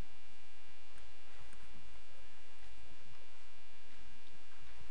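Steady electrical mains hum, low and constant, with a thin buzz of steady higher tones over it and a few faint ticks.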